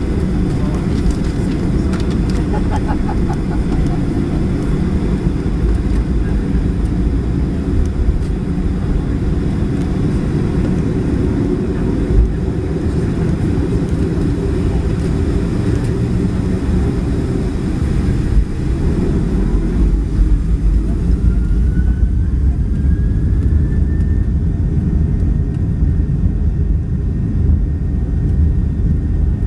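Boeing 737-700's CFM56-7B turbofan engines heard from a cabin window seat beside the wing: a steady low rumble while taxiing onto the runway. About twenty seconds in, a whine rises in pitch and then levels off as the engines spool up for the takeoff roll.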